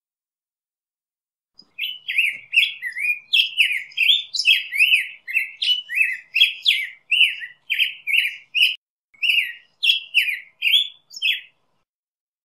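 Black-headed grosbeak singing: a long, continuous run of short warbled notes sliding up and down, starting about two seconds in and stopping shortly before the end.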